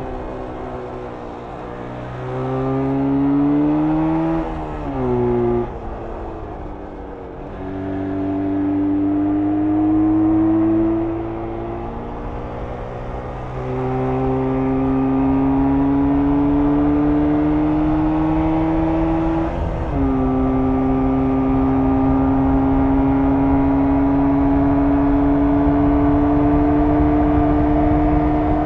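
1994 Jawa 350 two-stroke twin on its stock exhaust, ridden under load: the engine's pitch climbs steadily in each gear and drops sharply at upshifts, about a quarter of the way in, near the halfway mark and about two-thirds in, after which it holds a long, slow climb in a high gear. Early on there is a short rise and fall of revs.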